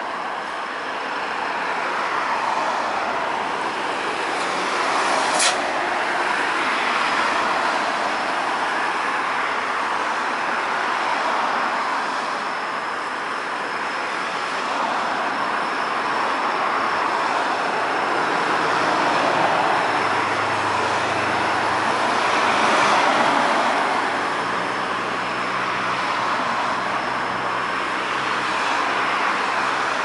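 Cars passing one after another on a rain-wet street, the tyre hiss swelling and fading as each goes by. A single sharp click about five seconds in, and a low hum joins after about twenty seconds.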